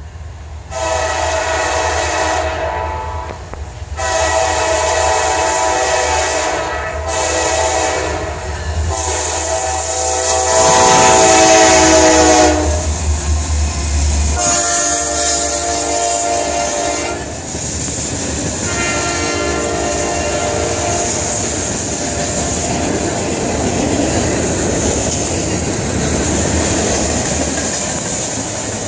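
Norfolk Southern freight train passing close by. Its locomotive's horn sounds a series of long blasts over a low engine rumble, the loudest near the middle, where the horn's pitch drops as the locomotive goes past. A few weaker blasts follow, and then the steady rumble and clatter of the freight cars rolling by.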